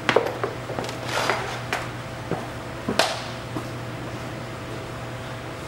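A string of irregular knocks and clicks of things being handled, the loudest about three seconds in, over a steady low hum.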